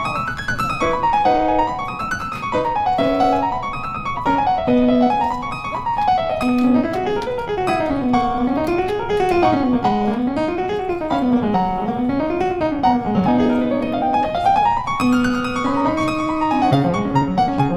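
Background piano music, played as fast runs of notes that climb and fall again and again over a lower accompaniment.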